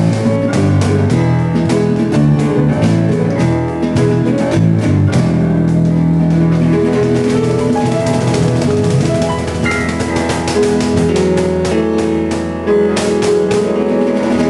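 Acoustic band music: guitar, cajon, piano and bass playing a song, with the cajon keeping a steady beat.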